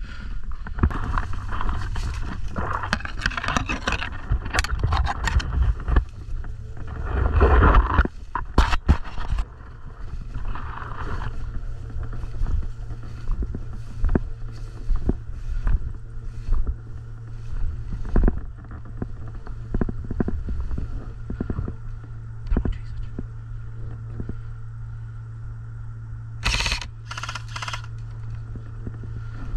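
Gear scraping and rustling close to the microphone of a moving airsoft player. Under it runs a steady low hum, with scattered sharp clicks and a quick cluster of snaps about 27 seconds in.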